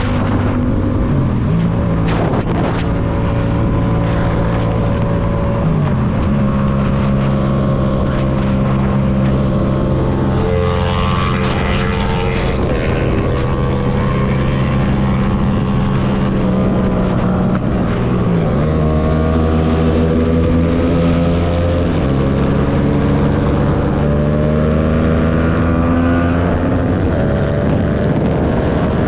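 Yamaha MT-07's 689 cc parallel-twin engine running under way, holding a steady note with a few changes in engine speed, then rising slowly over the last several seconds as the bike accelerates. Wind noise on the microphone runs underneath.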